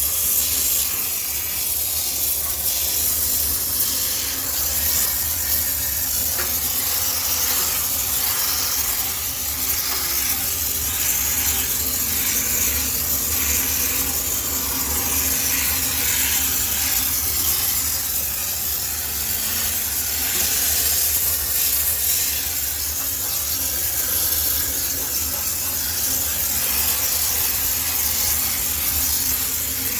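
High-pressure steam sterilizer jetting steam over a laundromat washing machine: a steady hiss that swells and eases a little as the nozzle moves, over a steady low hum.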